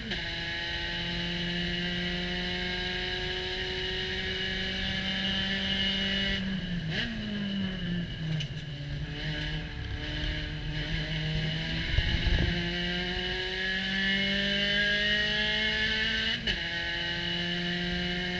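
Spec Racer Ford Gen3 race car heard from its open cockpit, its 1.6-litre Ford four-cylinder engine pulling hard with rising pitch, then dropping as the driver lifts and brakes for a corner a few seconds in. A loud thump comes around the middle of the corner. The engine then pulls up again, with a quick pitch drop near the end for an upshift into fourth.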